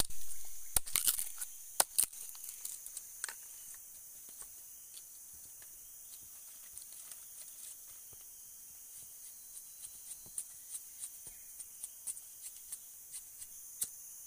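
A machete chopping and splitting bamboo, with a few sharp cracks in the first two seconds. Then come small snaps and rustles of dry leaves and sticks as the pieces are handled, over a steady high drone of forest insects.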